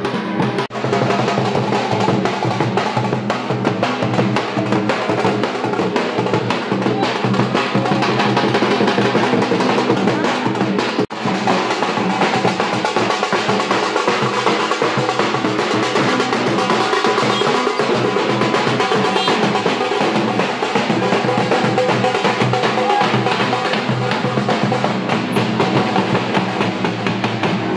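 Street procession drum band playing: large bass drums beaten with a stick together with smaller snare-type drums played with two sticks, in a continuous fast, loud rhythm, with a brief break about eleven seconds in.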